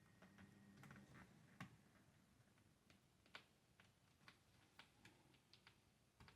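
Faint, irregular small clicks and ticks of a small screwdriver working the screen bezel's screws on a laptop lid, about a dozen over a few seconds.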